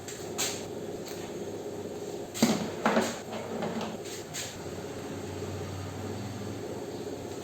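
Kitchen items being handled and put away: a handful of sharp knocks and clatters, loudest two and a half to three seconds in, over a steady hum.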